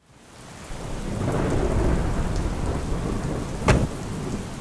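Rain falling with a low rumble of thunder that swells in over the first second or so. A single sharp knock about three and a half seconds in.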